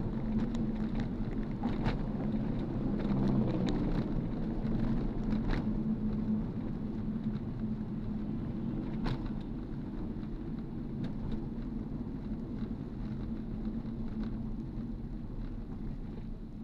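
Steady motor-vehicle engine hum and road noise, with a few faint clicks.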